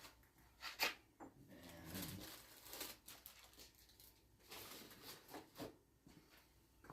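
Faint, scattered clicks and taps of small workshop items being handled and set down, a few seconds apart.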